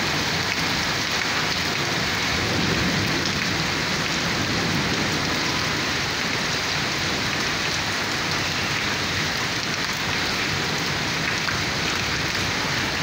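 Monsoon rain falling steadily on a concrete rooftop, an even hiss that does not let up.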